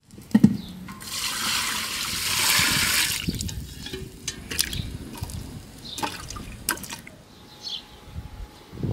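A large aluminium stock pot is set down on bricks with a knock, then water is poured into it for about two seconds. A few scattered sharp knocks and splashes follow as carrots go into the pot.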